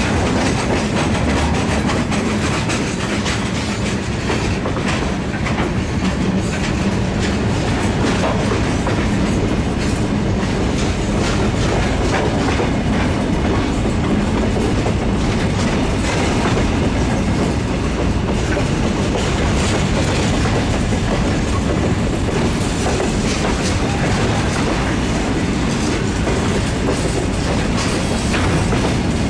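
Freight train's covered hopper cars rolling past close by: a steady rumble of steel wheels on rail with a constant run of clicks and clacks as the wheels pass over the track.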